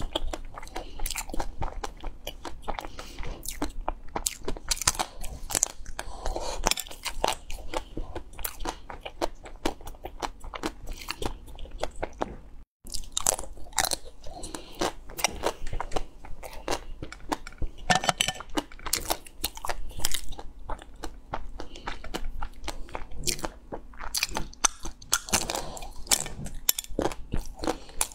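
Close-up biting and chewing of ice cream bars with a hard coloured chocolate shell: a dense run of crisp cracks and crunches as the shell breaks, mixed with wetter chewing. The sound cuts out completely for a moment about thirteen seconds in.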